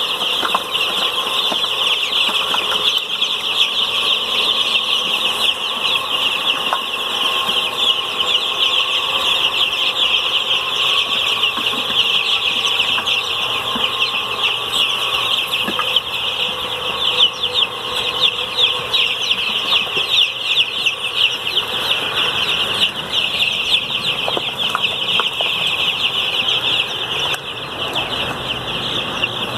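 A crowded flock of young Cobb 500 broiler chicks peeping continuously: a dense, high-pitched chorus of many overlapping short peeps.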